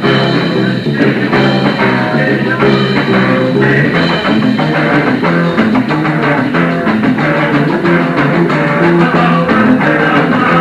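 Live cassette recording of a late-1970s punk band playing a guitar-led rock song, with electric guitars over a steady drum beat.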